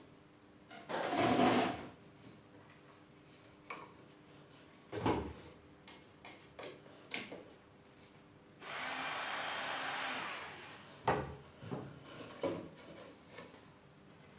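Workshop handling sounds of wood and tools: scattered knocks and clatter, a short loud scrape about a second in, and an even two-second rubbing or rushing scrape about two-thirds of the way through.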